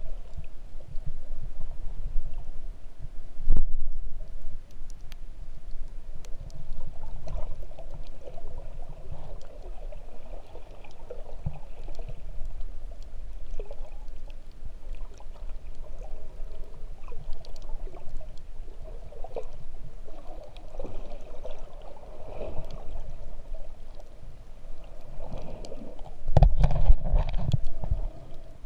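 Muffled underwater sound picked up by a camera held under the surface: a steady low rumble of moving water with gurgling and small clicks. There is a single knock about three and a half seconds in, and the low rumbling grows louder near the end.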